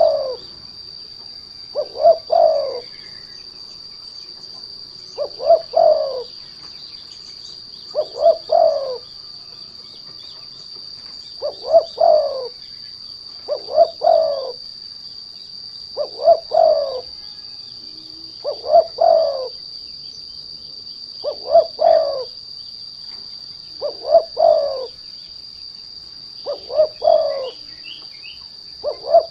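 Spotted dove (derkuku, tekukur) cooing its lure song: a short phrase of quick notes ending in a longer coo, repeated about every two and a half seconds, about a dozen times. A steady high-pitched insect-like whine runs underneath.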